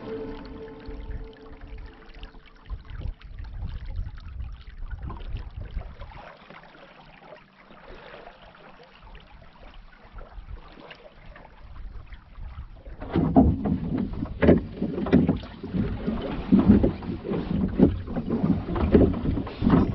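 Water rushing and lapping along a small wooden Kanot Yawl 400's hull and rudder as it sails, with a light wind. About thirteen seconds in, louder repeated splashes and knocks start as the boat is rowed with oars.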